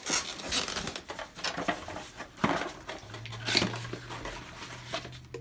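Packaging and plastic accessories being handled and unpacked: irregular rustling, light knocks and clicks. A low steady hum comes in about three seconds in.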